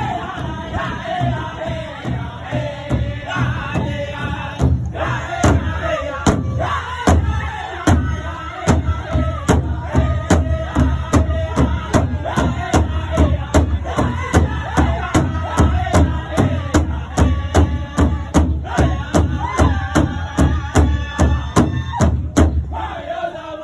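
Pow wow drum group singing a round dance song in chorus while beating a large shared powwow drum about twice a second. The drumbeats grow stronger about five seconds in and stop just before the end as the singing trails off.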